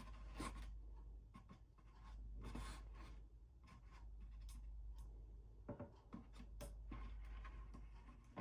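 Faint scratching and scattered light clicks of live shrimp stirring and tapping in a container as they are handled.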